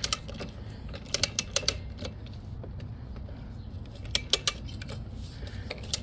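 Ratcheting socket wrench clicking in short runs of a few quick metallic clicks, with pauses between them, as it works on the mower's spark plug.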